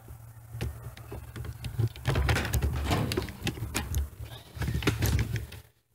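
Wind buffeting a microphone held outdoors, a low uneven rumble, with scattered clicks and scrapes of the device being handled. It cuts out abruptly near the end.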